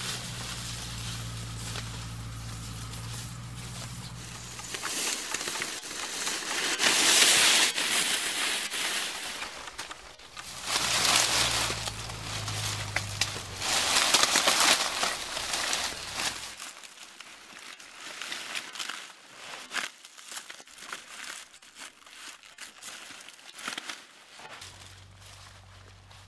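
Dry reed stalks rustling and crackling as they are cut, gathered and tied into a bundle by hand, loudest in two long bursts in the first half, then thinning to scattered snaps and rustles.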